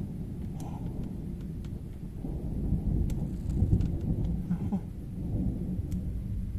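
Continuous rolling thunder from a strong, close thunderstorm: a deep rumble that swells about two seconds in and peaks near four seconds before easing off.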